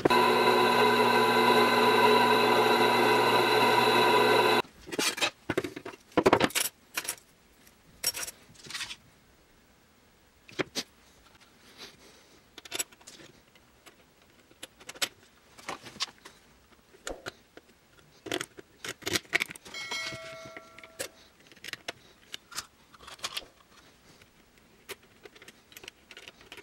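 An electric drill runs at a steady pitch for about four and a half seconds and stops. Small metal clicks and clinks follow as bolts, nuts and aluminium plates are handled and fitted to clamp the pouch cells' aluminium tabs together, with a brief ringing metal ping later on.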